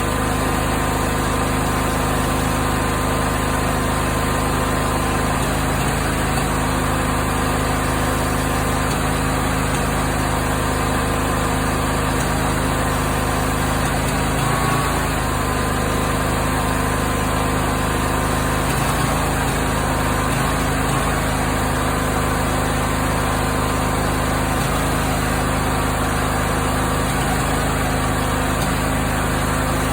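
Briggs & Stratton 20 HP V-twin engine running steadily, with a few irregular pops from the exhaust. The popping turned out to come from incorrect valve clearance (valve lash).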